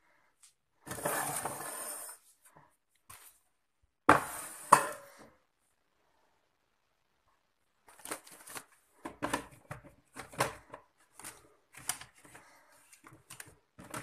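Food containers and tins being handled and set down on a cupboard shelf: a rustling scrape about a second in, two sharp knocks around four seconds, then a run of light clicks and taps over the last six seconds.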